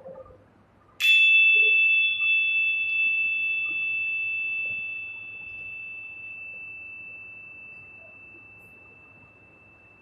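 A small high-pitched metal percussion instrument, such as a bell or chime, struck once about a second in and left to ring. It rings with two clear tones: the higher fades out within about five seconds, while the lower rings on, fading slowly over several seconds.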